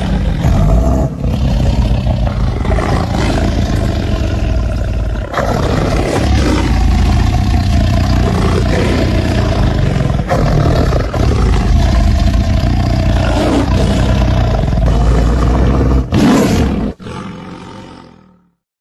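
Tiger roar sound effects: a long run of deep, loud roaring and growling, broken by short gaps, fading out to silence near the end.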